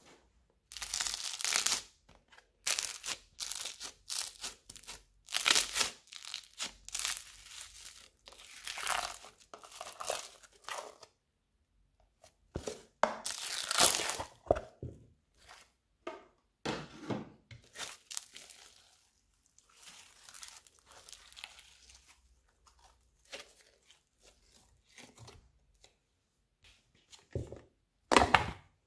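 Old slime being pulled, stretched and squished by hand, giving irregular sticky tearing and crackling sounds in bursts with short pauses between them, loudest near the end.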